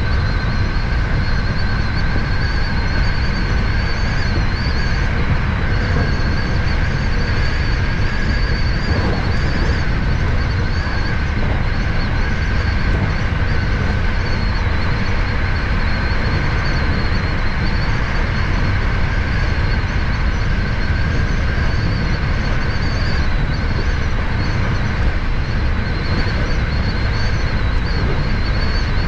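Hankyu 7000 series electric train running steadily between stations, heard from behind the driver's cab: a constant rumble of wheels on rail, with a faint steady high whine over it.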